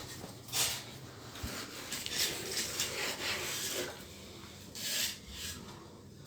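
A series of rubbing and scraping strokes, loudest about half a second in, through a busy stretch in the middle, and again near the end.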